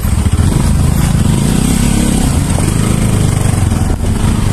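Motorcycle engine running steadily as the bike rides along, a dense low rumble heard from the rider's seat.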